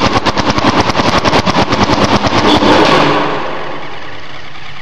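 Paintball marker firing a rapid stream of shots, about a dozen a second. The shots weaken and fade out about three seconds in, leaving a steady noise, as the marker's air tank runs out.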